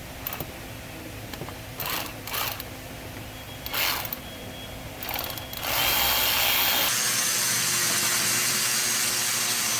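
Power driver unscrewing the bolts that hold the EGR pipe on a 5.7 Hemi: a few short spins, then one long continuous run from about six seconds in.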